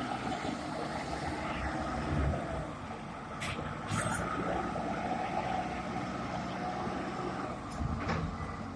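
Self-loading concrete mixer's 4.3-litre four-cylinder inline diesel engine running steadily under load as the machine climbs a slope, with a few brief sharp clicks about halfway through and near the end.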